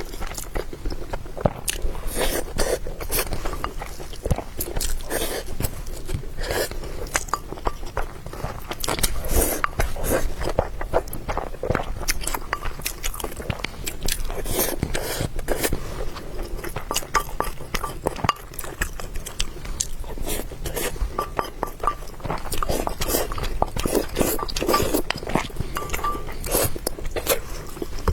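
A person chewing and biting food close to the microphone, with many small irregular mouth clicks and crunches.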